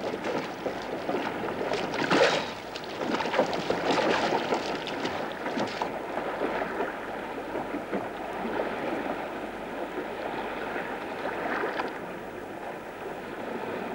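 Choppy sea splashing and lapping against a swamped open whaleboat, with wind on the microphone. A sharp splash about two seconds in; after about six seconds the splashing eases to quieter lapping.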